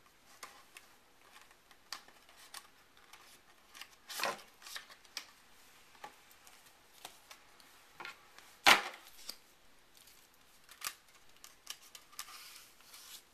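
Cardboard box and paper folder handled: scattered taps, rustles and sliding of card, with a rustle about four seconds in and one sharp click about two-thirds of the way in, the loudest sound.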